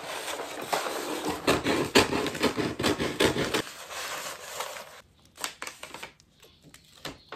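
Kraft wrapping paper rustling and crinkling as it is handled and folded around a gift box. It is loudest for the first three or four seconds, then quieter, with a few scattered taps near the end.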